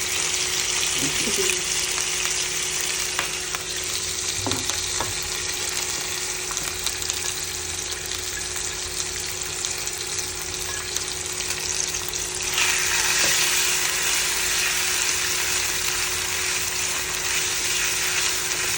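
Sliced chicken breast sizzling in hot oil in a frying pan, a steady hiss that grows louder about two-thirds of the way through.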